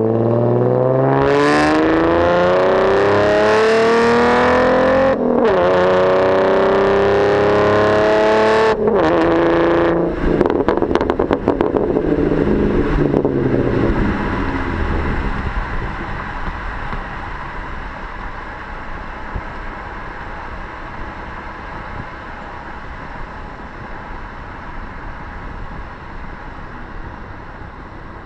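Ford Mustang 3.7-litre V6 with the mufflers deleted, exhaust through 5-inch tips, accelerating hard: the engine note climbs and drops back at a gear change about five seconds in, then climbs again. About ten seconds in, off the throttle, the exhaust crackles and pops for a few seconds, then the car settles into a quieter, steadier cruise that slowly fades.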